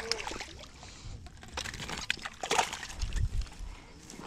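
Hooked trout splashing and sloshing at the water's edge as it is landed from the bank, with irregular clicks, knocks and rustling of handling close to the microphone.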